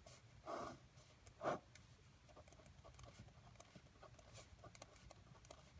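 Faint pen on paper: short scratchy strokes and ticks of a pen ruling lines and writing letters, with two slightly louder strokes in the first second and a half.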